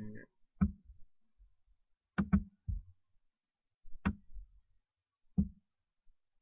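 Computer mouse clicks: about six short, sharp clicks with gaps between, a couple coming as quick press-and-release pairs, made while a shape is drawn and placed on the screen.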